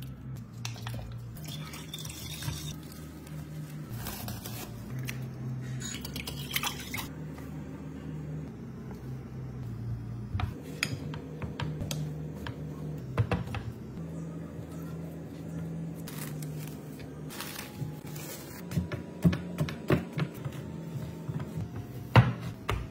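Hands mixing and kneading wet, sticky bread dough in a glass bowl: squelching with short taps and knocks against the glass, busier in the last few seconds. A low drone underneath shifts in pitch every second or two.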